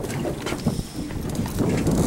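Wind buffeting the microphone on an open fishing boat: uneven low noise that rises and falls, dipping briefly about a second in.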